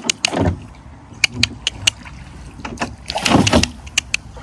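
Wooden rowing boat's oars pulling through the water: two splashing strokes about three seconds apart, with light clicks and knocks in between.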